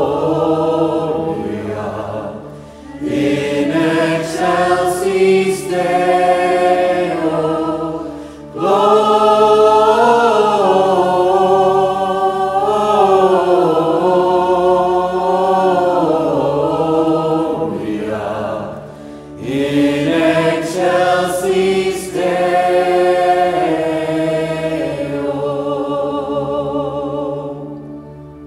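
A choir singing in several long phrases with brief breaks between them, over a steady low held accompaniment.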